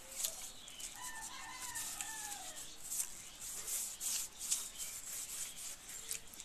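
A rooster crows once, a bending call of about a second and a half starting about a second in, over a run of short hissy swishes.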